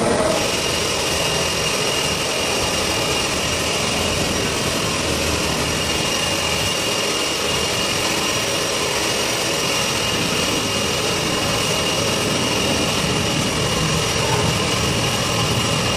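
Jet turbine noise from a parked C-5 Galaxy transport aircraft: a steady high whine over an even, broad rush.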